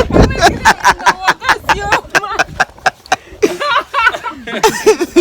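People laughing in a quick run of short bursts, about five a second, followed by a few indistinct spoken words.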